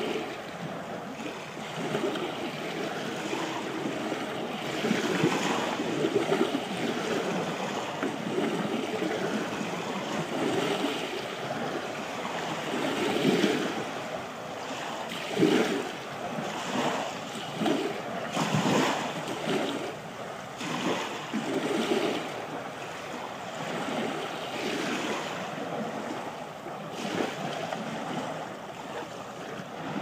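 Small waves lapping and washing up a sand-and-pebble beach in a continuous hiss that swells and ebbs every second or two, with a few stronger surges.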